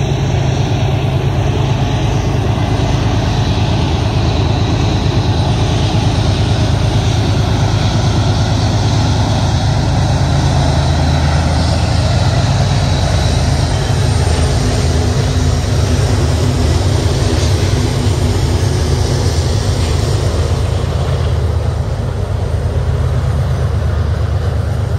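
Union Pacific diesel-electric freight locomotives running with a steady, deep engine drone. The sound eases slightly a few seconds before the end.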